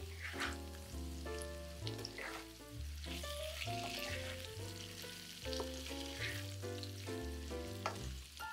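Food sizzling as it fries in oil in a pan, with occasional stirring scrapes, under steady instrumental background music with a bass line and changing chords.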